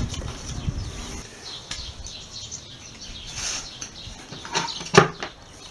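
Light handling noises of MDF boards and hand tools, with birds chirping in the background and a sharp knock about five seconds in.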